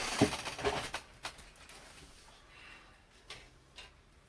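A few sharp clicks and taps, the loudest in the first second, then single taps now and then.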